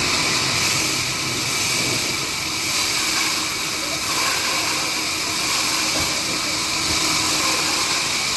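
Sawmill band saw running through timber: a steady hiss of cutting that keeps on without a break.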